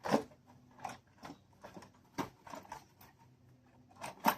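Scattered clicks and clinks of small parts and tools being handled and set down while rummaging for a part, about eight sharp knocks, the loudest just after the start and another near the end.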